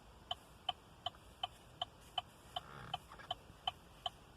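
Chevrolet Suburban's cabin warning chime ticking in a steady rapid series, about three evenly spaced ticks a second, as the vehicle's electronics wake up again with the door open.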